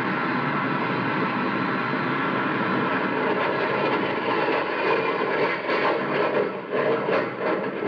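Sound effect of a jet airplane's engine running: a loud, steady rushing noise that turns rougher and more uneven from about five seconds in.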